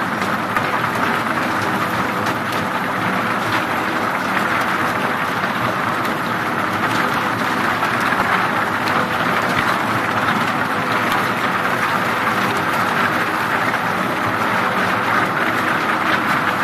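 Log debarking machine running loaded with thin logs: a steady, dense clatter of wood knocking and scraping as the rotors in the trough's floor tumble the logs and strip their bark, over a low machine hum.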